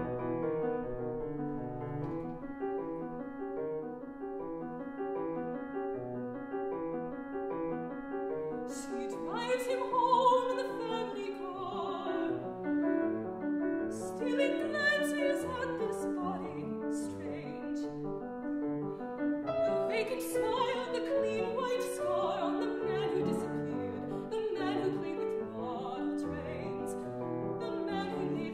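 Mezzo-soprano singing with Steinway grand piano accompaniment. The piano plays a steady repeating figure alone for the first several seconds, and the voice comes in about nine seconds in, breaking off briefly between phrases.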